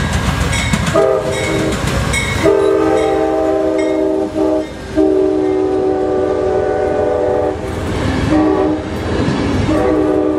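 Locomotive multi-chime air horn sounding several blasts over the rumble and clickety-clack of a passing train. After a brief blast about a second in come two long blasts, a short one and a long one near the end: the long-long-short-long grade-crossing signal.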